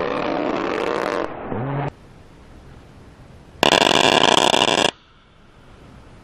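A-10 Thunderbolt II jet noise, cut by a short burst from its 30 mm GAU-8 cannon about a second and a half in: a low buzz that rises in pitch as the gun spins up. Around three and a half seconds in a second, louder and harsher burst of cannon fire lasts over a second.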